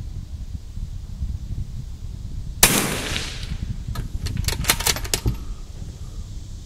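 A single .22 LR rifle shot with a short echo about two and a half seconds in, followed a second later by a quick run of about seven sharp clicks, over a steady low wind rumble.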